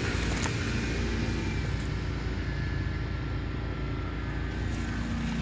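Steady low rumble with no distinct separate sounds.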